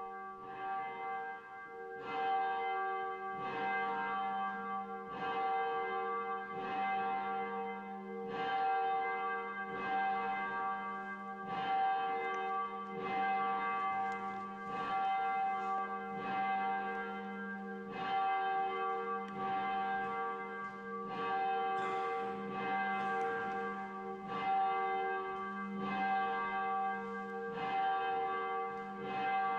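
Church bell tolling steadily, struck about every one and a half seconds, each strike ringing on into the next.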